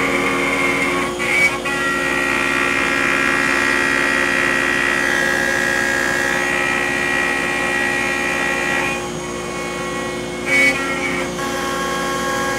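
CNC router spindle running steadily with a whine as a long 1/4-inch roughing endmill cuts a slot through hard Honduran rosewood, 0.17 inch deep at 48 inches per minute. The pitch shifts about a second in and again around nine to eleven seconds in, with a brief louder burst at each change.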